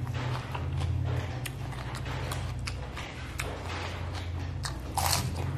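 Close-miked eating sounds: wet mouth clicks and chewing, with a louder crunch about five seconds in as raw cucumber is bitten, over a steady low hum.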